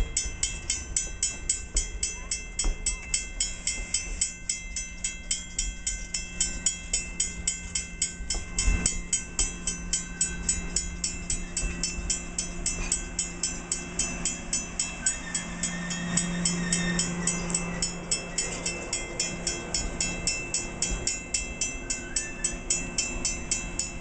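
Railroad grade-crossing bell ringing steadily at about two strikes a second while stainless-steel streamlined passenger cars roll slowly past, wheels knocking over the rail joints and the cars rumbling, with a low hum that swells for a few seconds past the middle.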